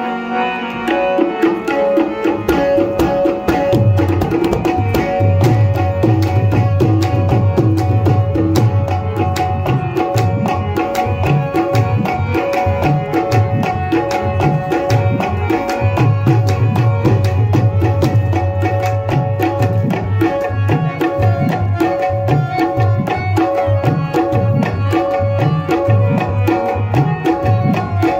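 Instrumental qawwali accompaniment: tabla playing a fast, dense rhythm over sustained harmonium notes. The deep bass-drum strokes of the tabla join in about four seconds in and keep going.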